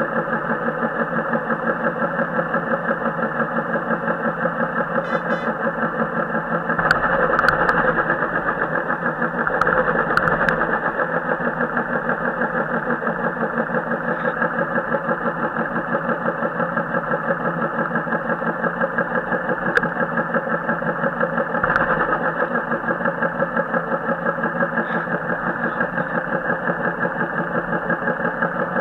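Royal Enfield single-cylinder motorcycle engine running steadily while riding, recorded on a helmet or action camera so it sounds harsh and distorted. It gets briefly louder twice, about seven and ten seconds in.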